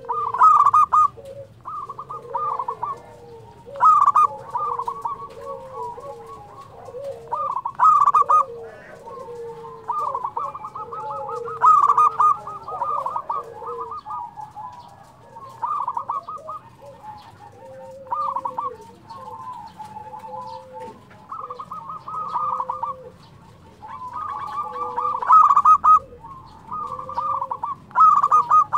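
Local zebra doves (perkutut) cooing in rapid, stuttering phrases, the loudest calls coming about every four seconds, with softer, lower coos in between.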